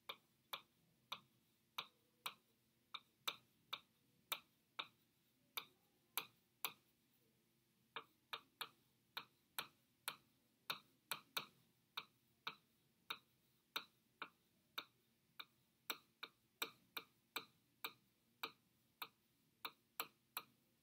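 A stylus tapping and clicking on an interactive touchscreen display as words are handwritten on it. The clicks are faint and irregular, about two a second, with a short pause about seven seconds in, over a faint low hum.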